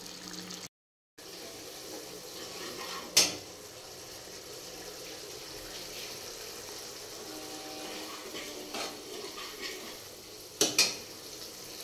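Tomato-puree and spice masala sizzling steadily in a non-stick kadhai as it cooks down to dry off its water. A steel ladle clinks against the pan about three seconds in and a couple of times near the end.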